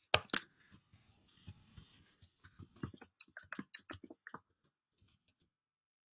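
Computer keyboard typing: a quick, irregular run of key clicks that stops about four and a half seconds in, with two louder clicks at the very start.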